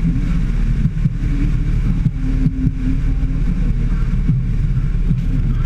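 A vehicle travelling at road speed: steady engine and road rumble, with wind buffeting the microphone.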